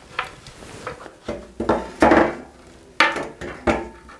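Shelves being handled and set into a shelving unit: a series of knocks and clattering bumps, the loudest about halfway through and another sharp knock a second later.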